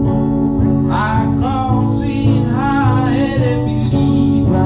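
Acoustic guitar being strummed in steady chords, with a man singing along into a microphone. The voice comes in about a second in and holds for a couple of seconds.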